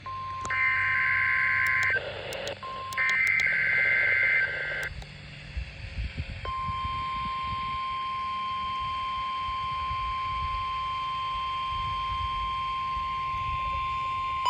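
NOAA Weather Radio alert tones: two short bursts of warbling digital SAME header tones, then, about six seconds in, the steady single-pitch 1050 Hz warning alarm tone, held without a break.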